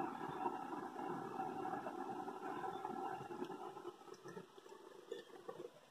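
Running water of a trout stream, a steady rushing that fades about four seconds in.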